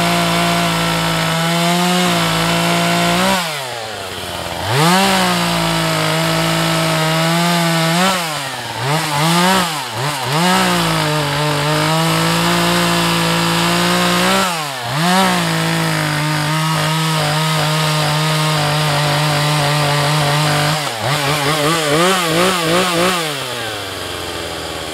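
Husqvarna 435 two-stroke chainsaw cutting a felled pine log at full throttle. The engine falls back and picks up again several times between cuts, revs in quick blips near the end, then drops to idle. With its low-speed jet turned a quarter turn, the owner says it runs but doesn't sound right.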